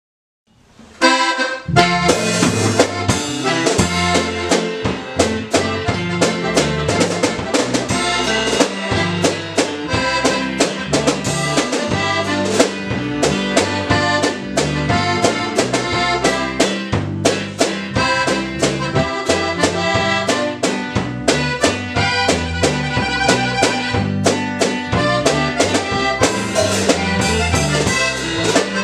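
Norteño-style band playing an instrumental passage, starting about a second in: a button accordion carries the melody over a drum kit keeping a steady beat, an acoustic guitar and an electric bass.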